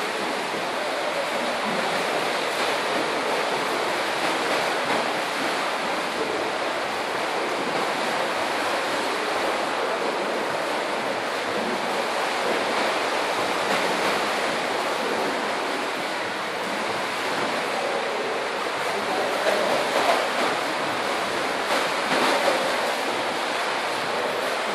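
Steady splashing of several children swimming laps in a tiled indoor pool: a continuous wash of churned water, with a few louder splashes near the end.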